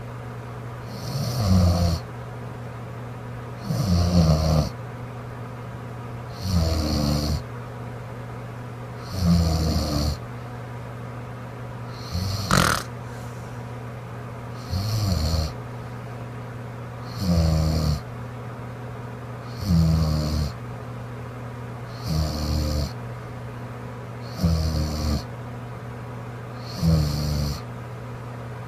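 A sleeping woman snoring in a steady rhythm, one rough snore about every two and a half seconds, over a constant low hum. A sharp click comes about halfway through.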